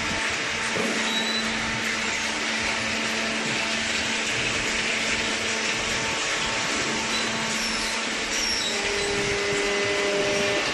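A machine running steadily: a constant motor hum under a loud hiss, with a second faint tone joining near the end.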